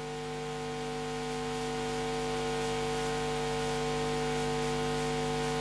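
Steady electrical hum of several steady tones with light hiss, slowly growing louder.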